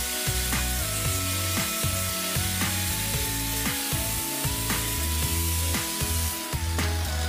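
Rotary power sanding disc running against a wooden hatchet handle, a steady hiss, lifted off near the end. Background music with a steady beat plays over it.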